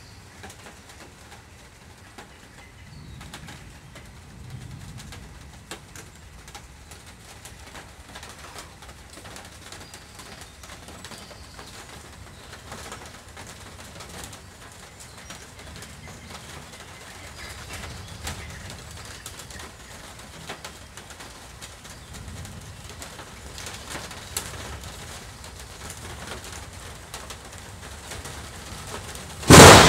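Quiet storm ambience with a few faint low rumbles, then near the end a sudden, very loud crack of thunder from a close lightning strike, trailing off into rumble.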